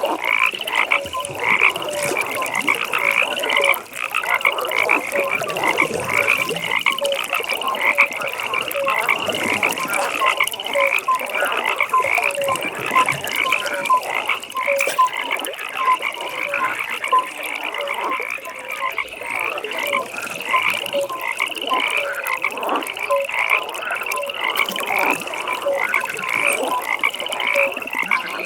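A dense chorus of many frogs calling over one another at a pond: a constant layer of high, quick calls with lower croaks repeating at an even pace beneath them.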